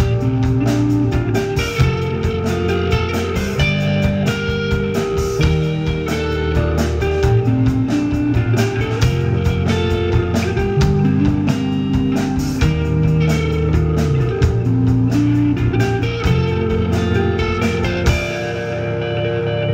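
Live rock band playing: electric guitar over a drum kit keeping a steady beat with cymbals. About two seconds before the end the drums and cymbals drop out, leaving the guitar notes ringing.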